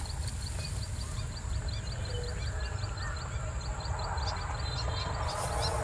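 Rapid, evenly spaced high-pitched chirps from wildlife, about five a second, thinning out after about four seconds, over a steady low rumble of wind on the microphone.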